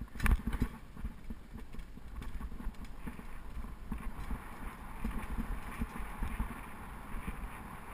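Bicycle riding noise: irregular knocks and rattles as the bike rolls over the road surface, with wind on the microphone and a steady rushing noise that builds about three seconds in.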